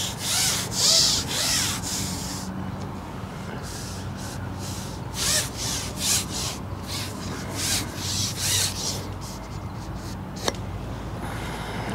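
Repeated rubbing swishes in irregular bursts as a fishing pole is handled while playing a hooked fish, with one sharp click near the end.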